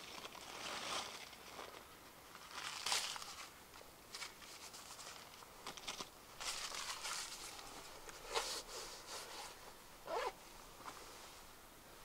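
Irregular rustling and crinkling in short bouts, with a few sharp clicks between them.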